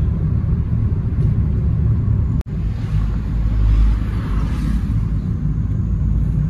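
Car road noise heard inside the cabin: a steady low engine and tyre rumble. It cuts out for an instant about two and a half seconds in, then comes back with a louder rushing noise for a second or two.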